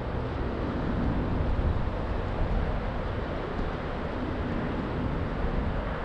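Steady wind rumble on the microphone, with traffic passing on the street.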